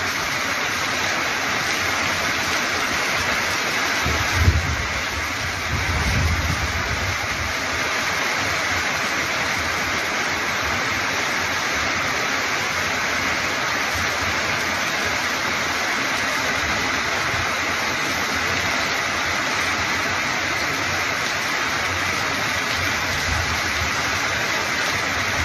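Torrential rain pouring steadily onto sheet-metal roofs in a dense, even hiss. About four seconds in there is a short low thump, followed by a brief low rumble.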